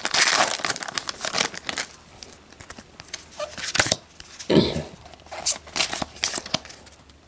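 Foil Pokémon booster pack crinkling and being torn open, followed by the flicks and slides of trading cards being handled. A short low sound comes about halfway through.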